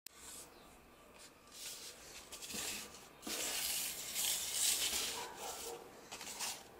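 Hands handling a long cardboard fluorescent-tube box, sliding it on a tabletop and lifting it: rubbing and rustling of cardboard, loudest in the middle.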